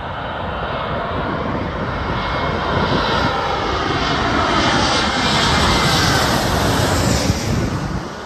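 Twin-engine jet airliner on final approach passing low overhead, its engine noise growing louder with a falling whine, peaking about six to seven seconds in and fading just before the end.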